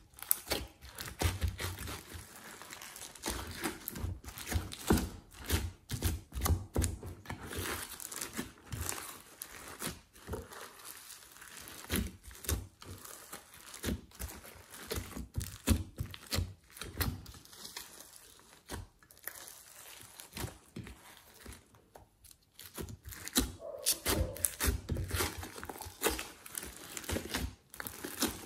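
Hands squishing and kneading glossy slime full of foam beads and glitter in a glass dish: dense irregular sticky crackling and clicking, with soft thumps as the slime is pressed down, easing off briefly twice.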